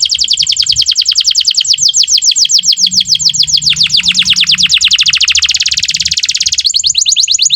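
Canary singing a long rolling trill of rapid downward-sweeping whistled notes, about a dozen a second, that slows and quickens. Near the end it switches to a different, quicker trill.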